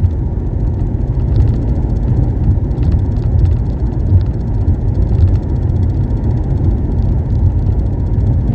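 Steady low road and engine rumble inside a car's cabin while it drives at highway speed.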